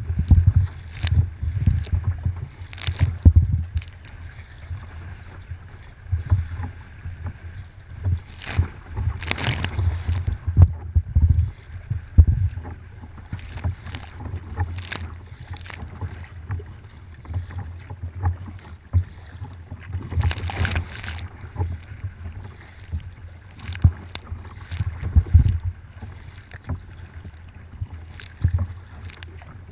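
Wind rumbling on the microphone, with irregular splashes every second or two as paddle blades strike choppy water and waves wash against the kayak's hull and deck.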